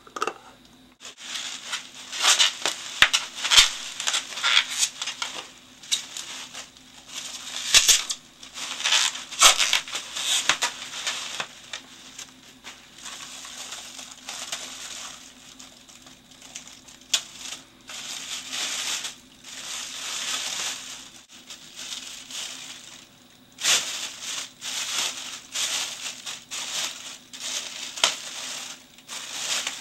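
Bubble wrap and a clear plastic bag being handled and pulled open, crinkling and rustling in irregular bursts, with a few sharp crackles in the first ten seconds or so.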